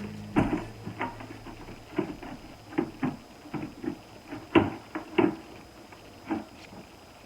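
Plastic storage-bin panels knocking and clicking against each other as they are handled and pushed together, a dozen or so irregular clacks, the loudest two a little past the middle.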